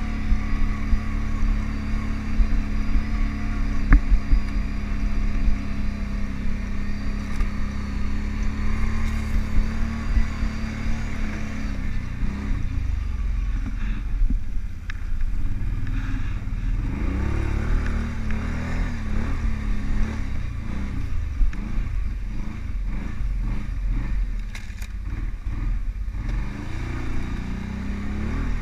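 Kawasaki Brute Force ATV engine running as it rides through snow, steady at first, then revving up and down unevenly through the middle stretch before settling into a steady run again near the end.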